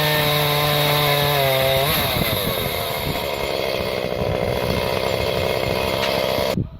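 Chainsaw clamped in a homemade stand, running at high speed with a steady note. About two seconds in, the note breaks up into a rough, noisier sound as the chain bites into wood. It stops abruptly near the end.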